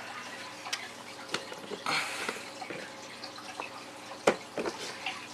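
Hands handling electrical wire against a plastic tackle box lid: scattered small clicks and taps, a brief rustle about two seconds in, and one sharp click a little past four seconds.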